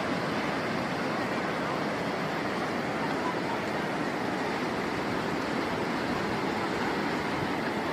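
Steady rush of sea surf washing in.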